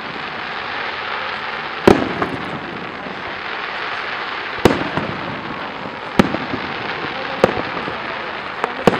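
Aerial fireworks shells bursting in the distance: five sharp bangs a second or two apart, each trailing off with a short echo, over a steady background hiss.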